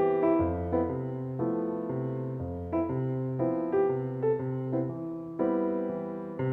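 Background piano music: sustained chords over a bass note that changes about once a second.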